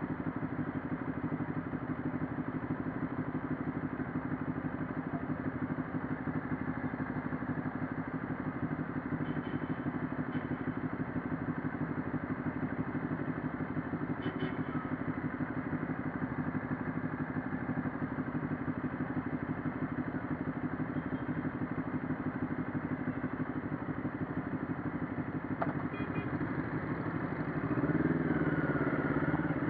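CFMoto 400NK motorcycle's parallel-twin engine idling steadily while stopped, then revving up near the end as the bike moves off.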